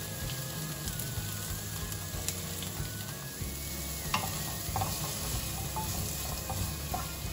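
Sliced shallots sizzling as they fry in hot coconut oil. From about four seconds in, a wooden spatula stirs them, clicking against the pan.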